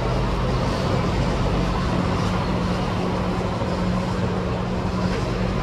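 Steady low mechanical hum under a constant wash of outdoor noise, from the cruise ship's machinery as heard on its open deck.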